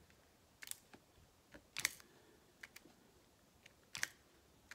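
Light, irregular clicks and taps of a diamond-painting drill pen picking round resin drills out of a plastic tray and pressing them one at a time onto the canvas, two or three a second.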